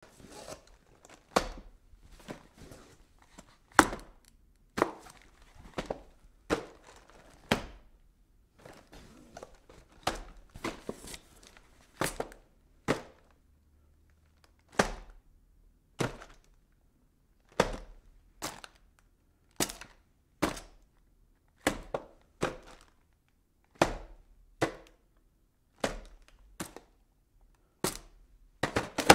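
A series of sharp knocks, one every second or two at an uneven pace, over a faint low hum.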